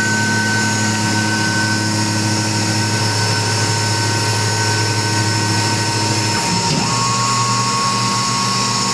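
Tormach PCNC 1100 CNC mill running its program, with a steady motor whine and hum that shift in pitch about six and a half seconds in.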